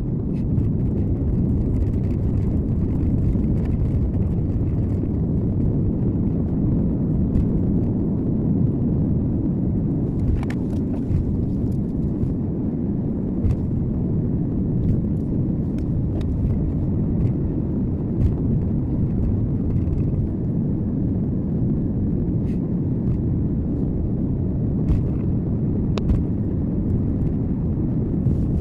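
Car driving steadily: low road and engine noise heard from inside the cabin through a dashcam microphone, with a few faint clicks now and then.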